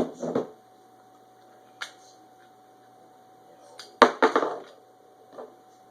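Sharp metallic clicks and clacks from handling a Glock 9mm pistol and its magazine. A few single clicks come first, then a louder quick cluster of clacks about four seconds in.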